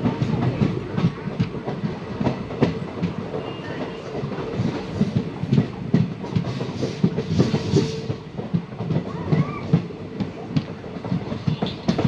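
Train running along the track, its wheels clattering over the rails with a continuous rumble and many rapid clicks.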